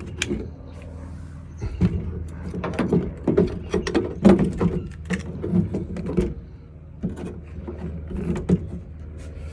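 Car window regulator assemblies being handled: metal rails and cable rattling and clacking in a string of irregular knocks, busiest in the middle and thinning out near the end.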